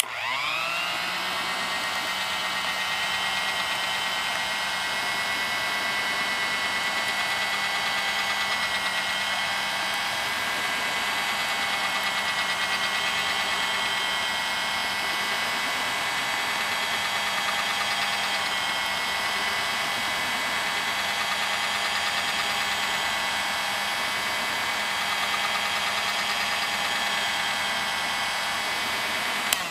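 Electric blender motor starting up with a whine that rises over the first second, then running steadily at full speed. A click near the end as it is switched off.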